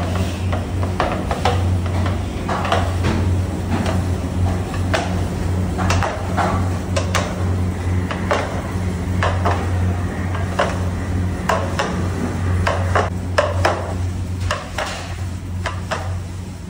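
Hand-held sticks knocking and clattering against a large aluminium tray and against each other as hot sugar syrup is pulled and folded for patisa, in irregular strokes, over a steady low hum.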